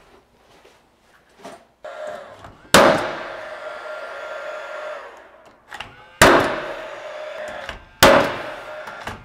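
Cordless 16-gauge angled finish nailer firing nails into wood trim: three sharp shots, the first about three seconds in and two more a few seconds apart, each followed by a ringing tail that fades over a second or two. Fainter knocks and handling sounds come before the first shot.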